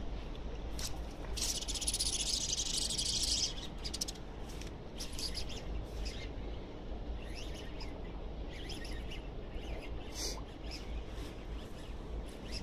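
Baitcasting reel (a Shimano Aldebaran BFS) making a rapid, high-pitched clicking burst about a second and a half in that lasts about two seconds, then scattered short clicks as the reel is handled.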